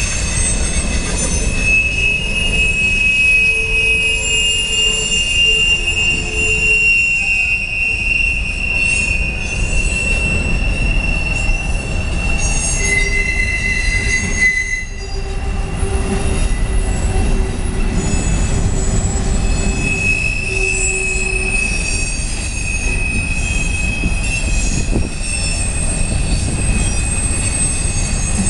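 CSX freight train of tank cars and covered hoppers rolling through a sharp curve, its wheels squealing against the rail over a steady low rumble. Several high squeal tones come and go and overlap, the flange squeal of steel wheels forced round a tight curve.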